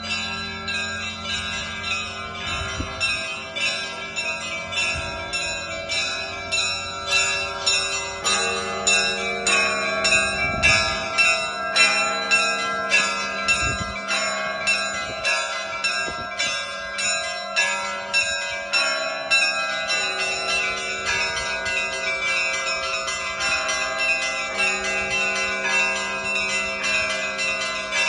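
Russian Orthodox festal bell ringing by a single bell-ringer: small bells struck in a quick repeating pattern over the steady ring of deeper bells, with a lower bell tone coming in about eight seconds in.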